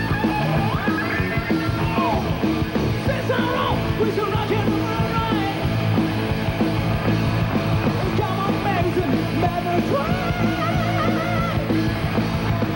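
Rock band playing live at full volume: electric guitars with bent, wavering lead notes over bass and drums.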